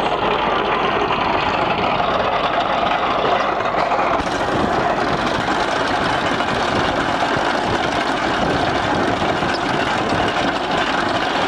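Tractor engine running steadily, driving a trenching machine through its power take-off shaft.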